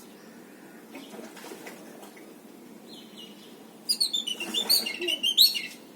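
Bird chirping: faint scattered calls, then about four seconds in a loud, rapid run of high chirps lasting nearly two seconds.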